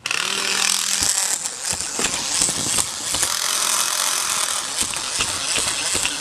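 Walking toy zebra's mechanism running: a steady, noisy whirr of small gears with rapid clicking that starts abruptly.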